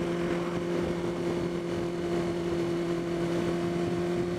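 Honda CBR600RR inline-four engine running at a steady cruising speed, its note holding one even pitch, heard from the rider's seat under a constant rush of wind and road noise.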